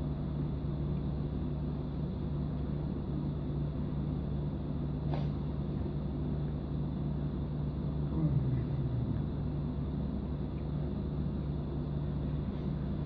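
Steady low hum and rumble of a quiet prayer hall, with one faint click about five seconds in.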